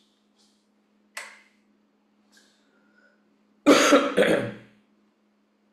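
A man coughs twice into his hand, a little past halfway. Before that there is a single sharp click, and a faint steady hum runs underneath.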